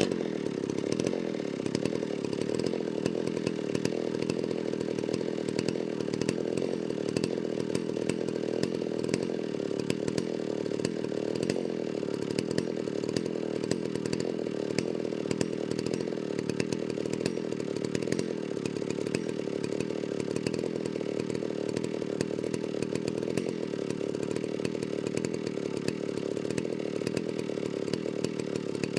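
Chainsaw running steadily, its pitch holding nearly level with a slight waver.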